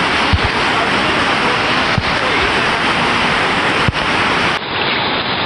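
Steady, loud rush of falling water from a waterfall, a dense hiss with no rhythm.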